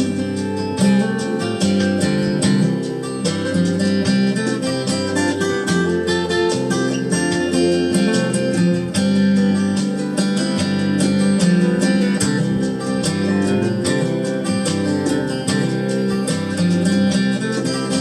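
Instrumental break of a country-folk song: acoustic guitar strummed steadily in an even rhythm, with no singing.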